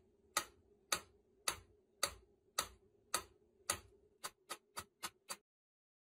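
Mechanical pyramid metronome ticking, a sharp tick a little under twice a second, then a run of quicker, fainter ticks before the sound stops.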